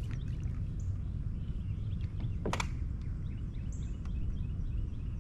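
Steady low outdoor rumble on an action-camera mic, with faint bird chirps scattered through it. A single sharp click comes about two and a half seconds in.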